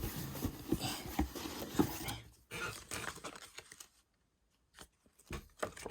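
A mail package being torn and opened by hand: irregular tearing, crinkling and handling noises for about two seconds, thinning out and going quiet, with a few soft knocks near the end.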